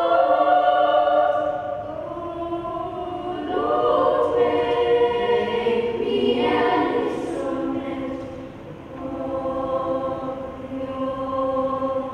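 Children's choir singing a cappella in harmony, holding long sustained chords that soften about two seconds in, swell again about four seconds in and dip briefly near nine seconds.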